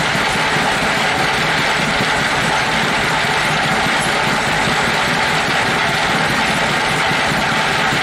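Sawmill running steadily while sawing a large hardwood log, a continuous loud machine drone with no breaks.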